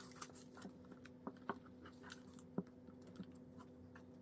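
Faint scattered crinkles and clicks of fan-folded paper being handled and pressed together while gluing, over a steady low hum.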